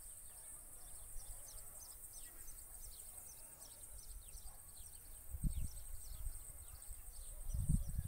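Rural outdoor ambience: a steady high insect hum under a long run of short, quick, falling chirps, about two or three a second. Low thumps on the microphone come about five and a half seconds in and again near the end.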